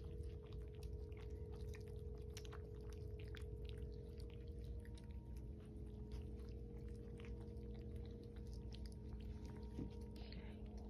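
Several kittens and a cat eating together from one plate: faint, scattered small clicks of chewing and lapping over a steady low hum.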